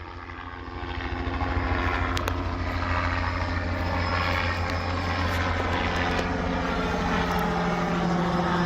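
Helicopter flying low overhead, its rotor chop growing louder over the first couple of seconds and then holding steady.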